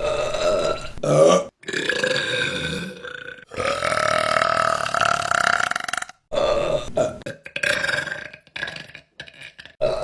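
A rapid string of women's burps, one after another: a few short ones, then one long drawn-out burp lasting over two seconds in the middle, then several shorter burps near the end.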